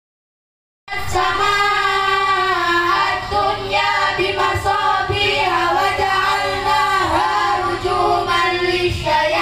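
A group of children reciting the Qur'an in unison in a drawn-out melodic chant. It starts abruptly about a second in.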